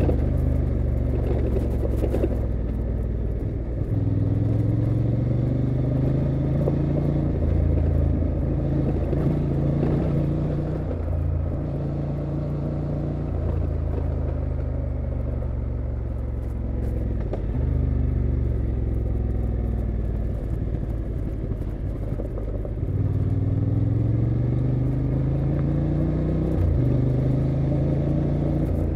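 Honda XL750 Transalp's 755 cc parallel-twin engine pulling on the move, its pitch climbing and dropping back several times as the throttle is opened and eased, steadier in between.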